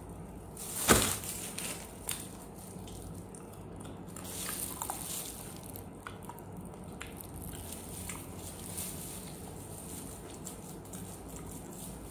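A bite cracking through the chocolate-and-almond shell of an ice cream bar about a second in, sharp and loud, followed by a few faint clicks and mouth sounds.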